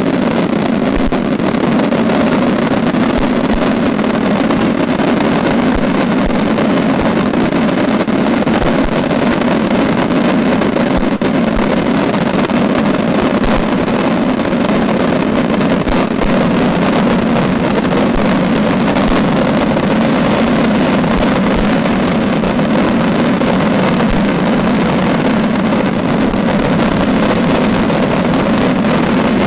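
Daytime fireworks barrage with the explosions packed so densely that they merge into one loud, steady rumbling din, without separate bangs or pauses.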